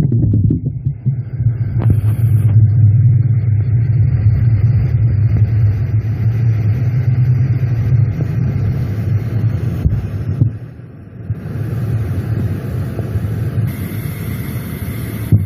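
Steady low droning rumble picked up underground through a borehole, dipping briefly about eleven seconds in before carrying on a little weaker. The recordist takes it for the machinery of tunnel digging.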